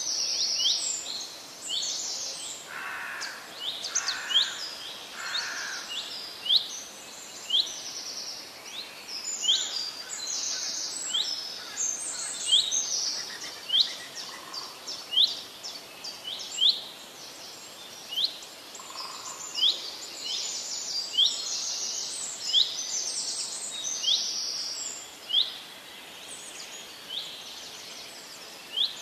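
Birds chirping: many short, high chirps, each falling in pitch, repeating about once or twice a second, with a few lower calls among them.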